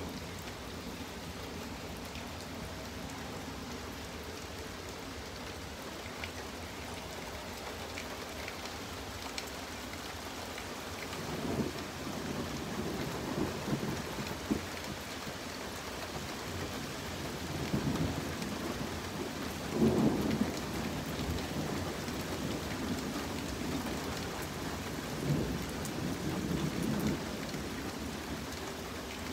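Steady rain, with low rumbles of thunder starting about eleven seconds in. The rumbles come in several swells, the loudest about two-thirds of the way through.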